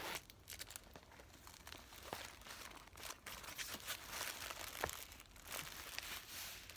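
Crinkling and rustling of packing tissue and plastic wrap as a nylon crossbody bag is handled, with many small crackles and light clicks.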